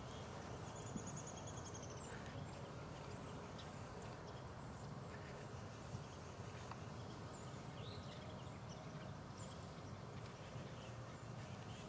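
Quiet woodland ambience: a steady faint hiss with scattered high, thin bird chirps, including a short rapid trill about a second in, and a few faint clicks.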